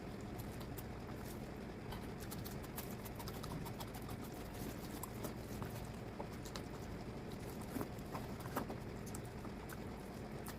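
Close-miked eating sounds: chewing and small wet mouth clicks and smacks from someone eating mutton fat curry with rice, scattered irregularly over a steady low background.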